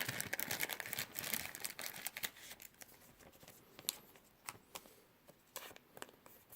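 Plastic crinkling and rustling as a trading card is handled and slid into a soft plastic card sleeve. The rustle is dense for the first two seconds or so, then thins to scattered small clicks and rustles.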